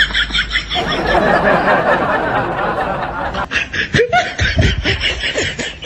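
Laughter: snickering that starts as a quick, even run of short giggles, then runs on as a denser stretch of chuckling.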